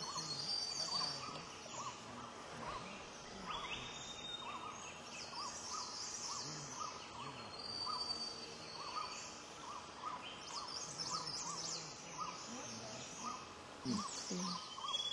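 Mountain forest birdsong: one bird repeats a short hooting note over and over, a little more than once a second, while other songbirds chirp, trill and whistle higher up.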